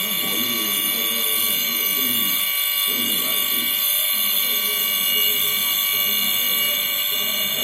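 Silent-type air compressor running, giving a steady high-pitched whine made of several held tones.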